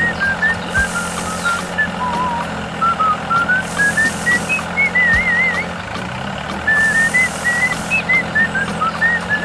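A cheerful whistled tune stepping up and down, with a wavering trill on some notes, plays over a steady low vehicle engine hum.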